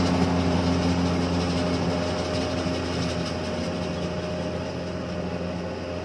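Kubota rice combine harvester's engine running steadily as the machine drives away through mud, fading gradually with distance.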